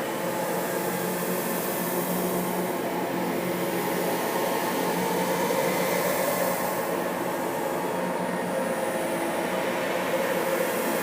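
A steady, dense drone of many held low tones under a hiss that swells and fades slowly: an eerie ambient sound effect.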